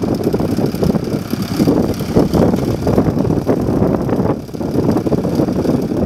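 Ford Major tractor's engine running under load as it pulls a mounted plough: a steady, rough, low chugging.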